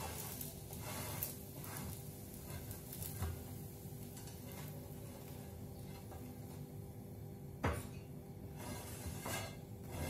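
Kitchen clatter while frying an egg: a pan and utensils knocking a few times over a steady hum, with one sharper knock about three-quarters of the way through.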